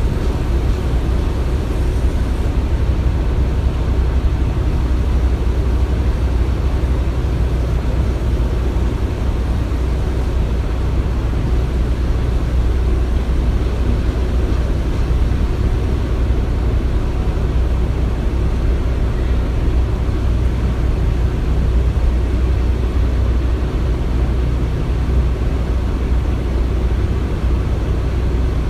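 Steady low rumble of heavy construction machinery running, even and unbroken, with no distinct knocks or impacts.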